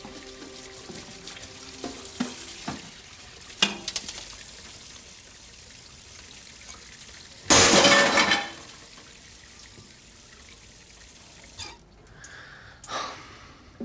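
Kitchen sounds of a baby's bottle being made up: a few light clinks of glass and dishes, then a loud rush of tap water lasting about a second, roughly halfway through, and a shorter rush near the end.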